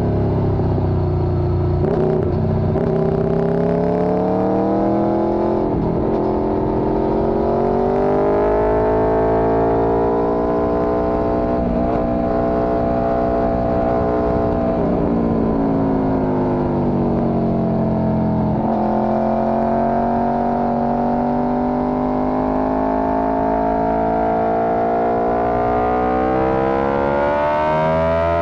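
Motorcycle engine under way, its pitch climbing and falling with the throttle through the bends. There is a sudden drop in pitch about two-thirds of the way through and a climb near the end.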